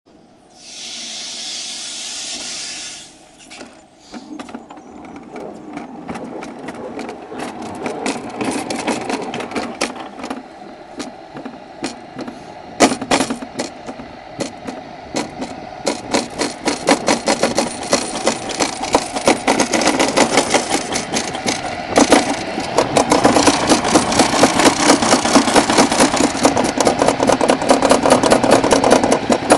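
Summer bobsleigh sled running down a stainless-steel trough track, a rattling rumble full of clicks that grows louder as it picks up speed, with sharp knocks about 13 and 22 seconds in. A short hiss is heard at the very start.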